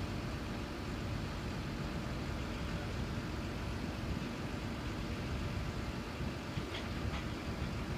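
Heavy engine running steadily at idle on a pile-driving rig, a low rumble with no hammer blows while the pile hammer is out of action.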